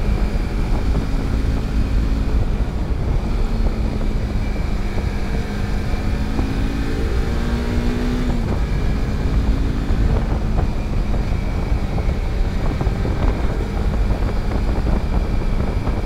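Kawasaki Versys-X 300's parallel-twin engine running steadily on the move under a dense low rumble of wind and road noise. About halfway through, the engine note climbs for a couple of seconds, then drops suddenly.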